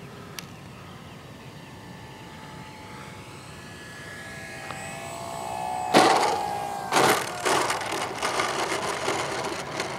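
Electric RC airplane landing: its electric motor whines faintly as it comes in, then the landing gear hits the dirt strip with a loud knock about six seconds in and a second knock a second later, followed by the wheels rattling and crunching over the rough ground as it rolls out.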